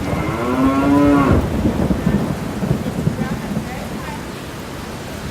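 One drawn-out call from a farm animal, about a second long, rising then falling in pitch, over a steady low rumbling noise.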